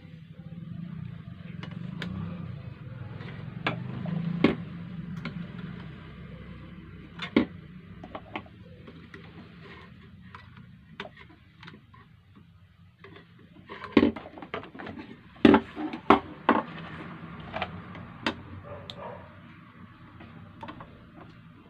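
Sewing machine foot pedal speed controller being tested and worked on. A low motor hum runs for the first several seconds, then sharp clicks and knocks of small metal parts being handled, loudest in a cluster about two-thirds of the way through.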